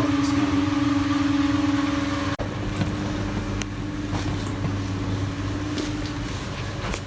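A steady mechanical hum with a held tone. About two and a half seconds in it cuts off sharply and a different, lower hum follows, with a few faint clicks.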